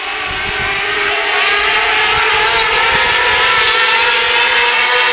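A pack of 600 micro sprint cars racing on a dirt oval, several high-revving 600cc motorcycle-based engines running together. The sound swells over the first second, then holds steady.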